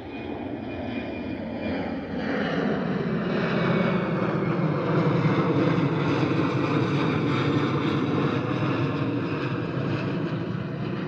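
An airplane flying low overhead, its engine noise building over the first few seconds and then holding loud and steady.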